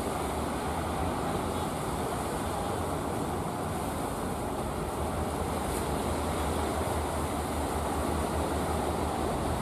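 A wooden fishing boat's engine running steadily as the boat comes in through the surf, mixed with the wash of waves.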